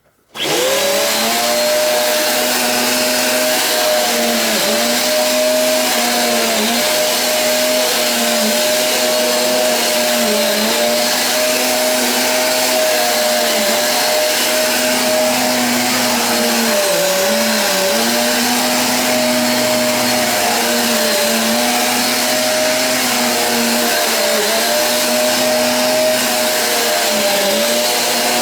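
Eureka AirSpeed One upright vacuum cleaner switched on, spinning up within a fraction of a second, then running with a steady whine whose pitch dips briefly every second or two.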